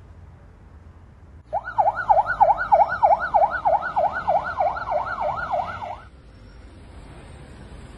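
Police car siren in a fast yelp, its pitch rising and falling about three to four times a second. It starts suddenly about a second and a half in and cuts off about six seconds in.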